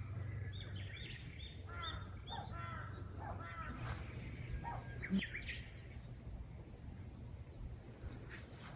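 Crows cawing in a series of harsh calls, mixed with a small bird's short high notes, over a steady low rumble of background noise; the calls die away after about six seconds.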